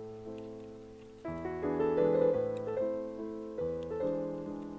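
Background piano music: a chord fades away, then a new chord is struck about a second in and a gentle run of notes follows.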